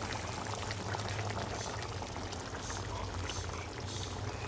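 Food cooking in a pan: a steady crackling, bubbling hiss with many small pops, over a low steady hum.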